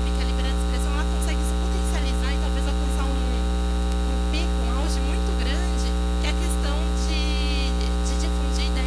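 Loud, steady electrical mains hum on the hall's audio feed, a low hum with a buzzing stack of overtones above it. Faint scattered ticks and rustles sit underneath.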